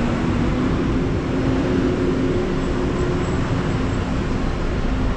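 Steady rumble of a moving vehicle, with a low hum from its engine or motor.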